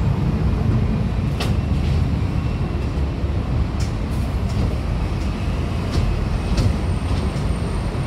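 Transjakarta city bus engine running with a steady low rumble as the bus pulls in close, with a few sharp clicks.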